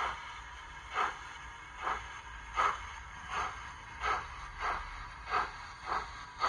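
Model Jubilee class steam locomotive's sound decoder playing steam exhaust chuffs from its onboard speaker as the engine pulls away. The beats come faster, from about one a second at first to nearly two a second by the end, over a faint steady hiss.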